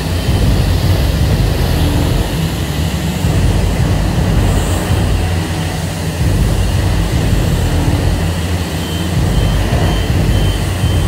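High-pressure wand at a self-serve car wash spraying water onto a car, a steady hissing spray over a continuous low rumble.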